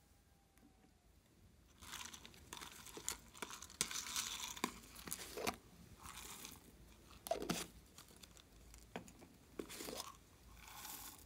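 Slime coming out of a tipped plastic jar onto a tray of glossy slime: sticky crackling in several bursts with sharp pops, starting about two seconds in.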